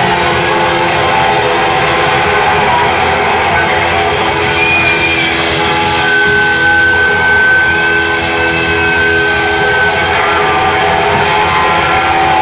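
Live dirty rock 'n' roll band playing loud: distorted electric guitars through Marshall amplifiers over a drum kit, with a high guitar note held for about four seconds midway through.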